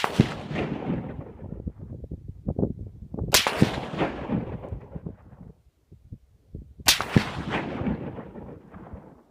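Three rifle shots from a .308 Remington 700 bolt-action rifle, about three and a half seconds apart, each report trailing off in a long rolling echo.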